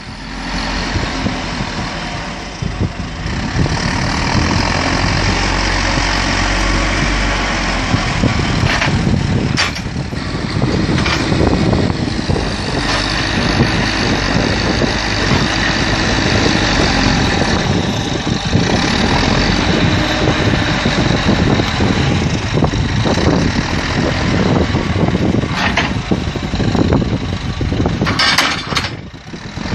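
JCB backhoe loader's diesel engine running under load as its front bucket pushes soil into a trench, dipping briefly near the end.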